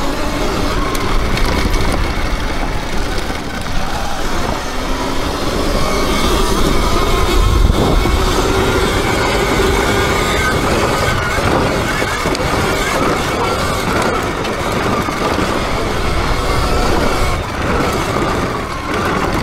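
Sur-Ron electric dirt bike being ridden: the motor's whine slowly rising and falling with the throttle over a steady rush of wind and tyre noise.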